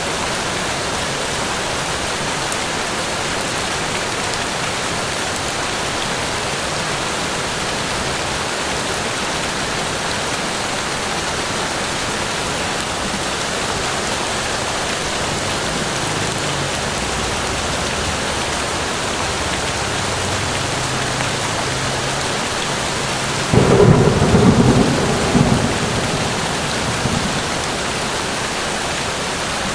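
Steady rain falling in a forest, with a faint low rumble of thunder building through the middle and a loud crack of thunder about three-quarters of the way through that rolls away over a few seconds.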